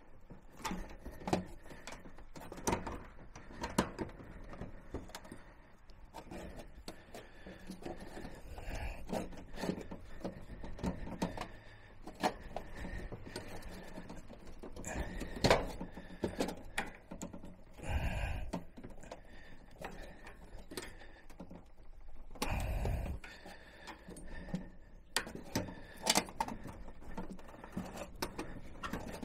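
Irregular light metallic clicks, knocks and rattles of hands working on parts inside a gas range's burner box during its installation, with two longer, louder stretches of handling noise past the middle.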